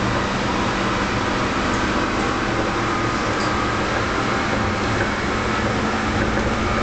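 Electric tram running along open track, heard from inside the car: a steady rolling noise with a constant hum.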